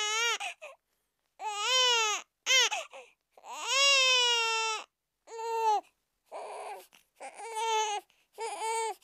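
A small child crying: a run of about eight wailing cries, each up to about a second and a half long, with short breaks between them. The longest cry comes near the middle.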